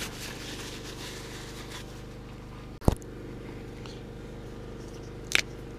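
Car running steadily, with an even low drone throughout. Two short clicks are heard, one about three seconds in and one near the end.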